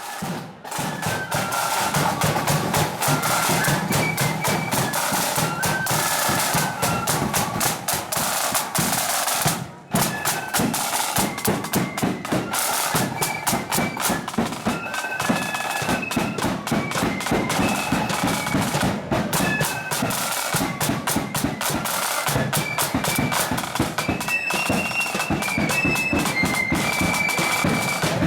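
Marching band playing a tune: a high, stepping melody on wind instruments over steady heavy drumming. The music drops out briefly about ten seconds in, then carries on.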